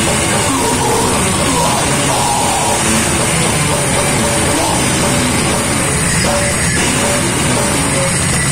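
A death metal band playing live at full volume: heavily distorted electric guitars, bass and a drum kit, continuous and dense with no break.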